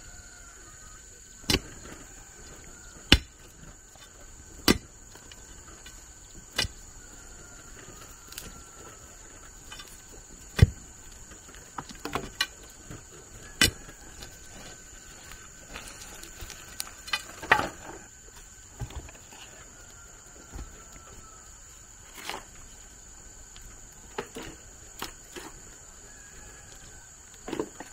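Sharp knocks from building work, about every second and a half at first, then irregular with some quick pairs and clusters. A steady high insect drone, like crickets, runs underneath.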